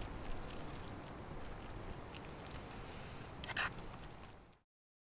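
Faint eating sounds: small clicks and scrapes of a fork against a wooden plate, with a slightly louder cluster of clicks about three and a half seconds in, over a low steady hiss. The sound fades out to silence near the end.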